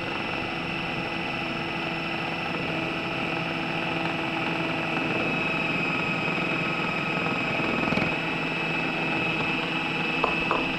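Electric food processor motor running steadily, its blade spinning through flour and eggs as pasta dough starts to mix, with a steady motor hum under the churning.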